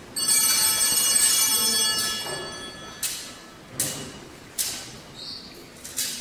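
Altar bell rung at the elevation of the chalice during the consecration: first a sustained ringing peal, then a series of shorter rings about every 0.8 seconds.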